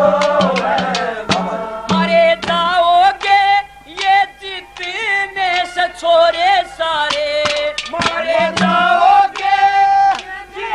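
A male singer performing a Haryanvi folk song live in a high, strained voice with long held notes, accompanied by percussion hits in the first couple of seconds and again about eight seconds in.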